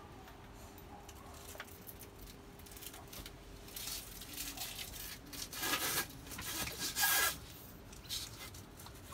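Canvas rustling and rubbing as an annex pole is slid through the sleeve of a canvas divider wall. It comes in a series of scraping rushes from about four seconds in, loudest about seven seconds in.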